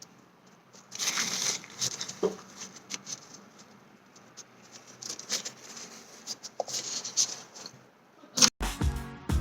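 Paper food packaging rustling and crinkling in short bursts, with light taps and clicks. A sharp click and then music with a steady beat start near the end.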